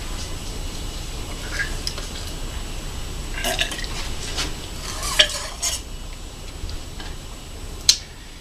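Light metallic clinks and scrapes as a thin sword blade is drawn out of the throat and handled, with a sharp click near the end, over a steady low room hum.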